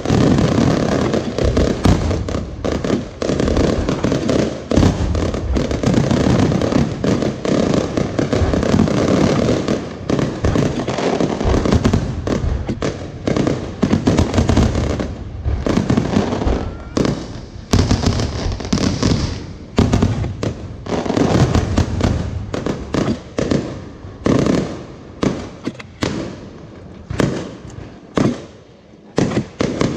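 Fireworks going off in a dense, continuous barrage of bangs and crackle, thinning to separate bangs in the last few seconds.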